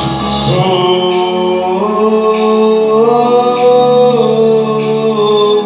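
A man singing long, wordless held notes into a microphone over a karaoke backing track. The notes step up in pitch a few times, then drop near the end.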